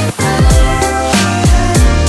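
Background music with a steady beat: electronic-style track with deep kick drums and pitched notes.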